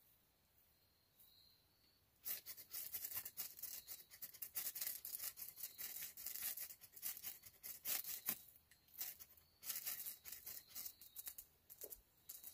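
Ferro rod being struck again and again with the spine of a Gerber knife, throwing sparks onto birch bark tinder to light a fire. It is a rapid run of short, rasping scrapes that starts about two seconds in and eases off near the end.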